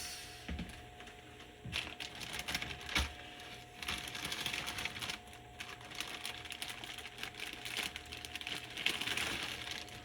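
Someone rummaging through small parts and tools: a run of light clicks, rattles and scrapes, with a sharper knock about three seconds in and busier rattling in the second half, over a faint steady hum.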